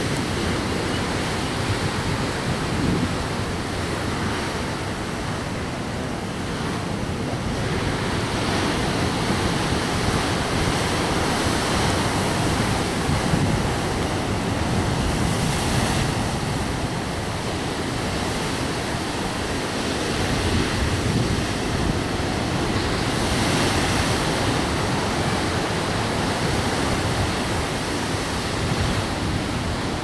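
Rough sea surf breaking and washing ashore continuously, swelling in surges as waves break.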